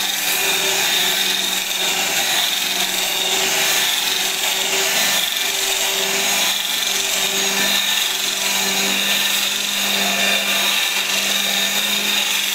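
Electric angle grinder with a rotary brush head running steadily and scrubbing a wet, foamy carpet: a continuous high motor whine over the brush rubbing through the pile, with a lower hum that swells and fades every second or so as the tool is swept back and forth.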